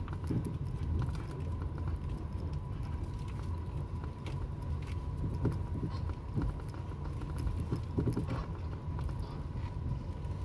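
Car driving slowly, heard from inside the cabin: a steady low rumble with scattered light clicks and taps.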